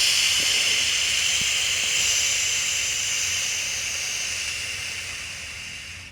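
A long, forceful hissing exhale through nearly closed lips or teeth, close to the microphone. It starts suddenly and fades slowly over about six seconds as the breath runs out.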